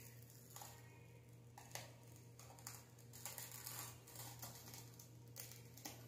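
Near silence: a low steady room hum with a few faint, short rustles as a thin peel-off film is pulled from the skin of the face.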